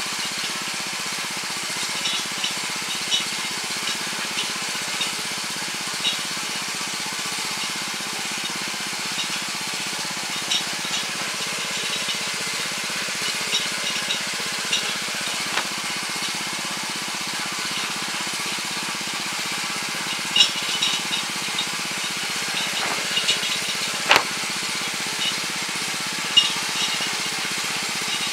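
Weima WM 900 tiller's 7 hp engine running steadily while its rotary tines churn hard, compacted soil, with scattered sharp clicks.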